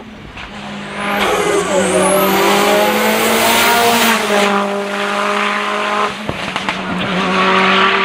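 Rally car engine held at high revs as the car slides sideways through a tight corner, its tyres squealing under wheelspin. About six seconds in the engine note drops abruptly, followed by crackling pops.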